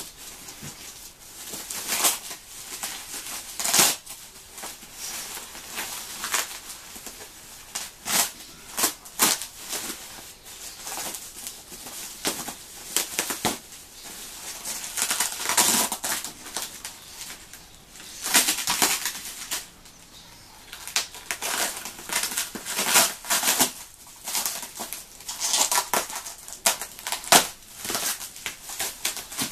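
Bubble wrap, packing tape and cardboard being pulled and cut away from a large box: irregular bursts of crinkling, rustling and tearing.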